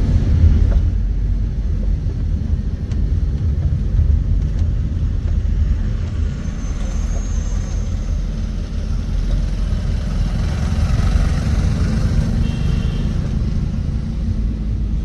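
Maruti Alto car driving on a city road: a steady low rumble of engine and road noise.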